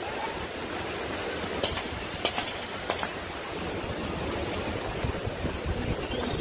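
Strong storm wind blowing steadily, with three short sharp clicks between about one and a half and three seconds in.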